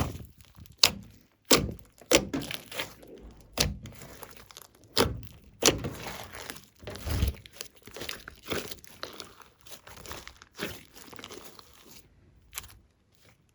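Slime being squeezed and pressed by hand, with irregular sharp pops and crackles about one or two a second that stop near the end.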